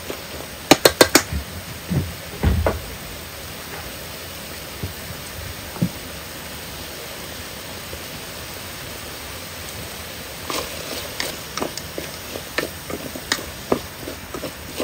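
Chopsticks stirring food in a large aluminium cooking pot and tapping against it: a quick run of sharp taps about a second in, a few dull knocks around two seconds, and scattered clicks again from about ten seconds on, over the steady hiss of the food cooking.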